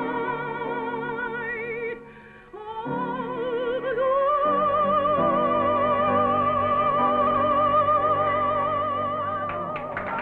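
Operatic soprano singing with a wide vibrato over a small band accompaniment, on an old film soundtrack that cuts off the highs. After a brief break about two seconds in, she climbs to a long high note held until near the end, when crowd noise breaks in.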